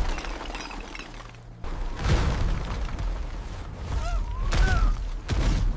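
Cartoon action sound effects: a series of impacts and crashes, with short rising-and-falling chirps about four seconds in.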